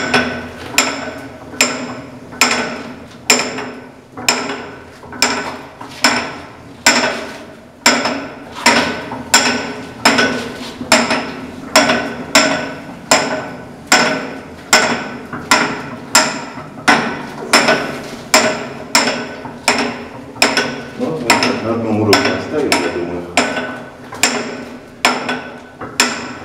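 Old hand-cranked ammunition hoist mechanism being worked, its metal parts clanking in a steady series of ringing knocks, about one or two a second.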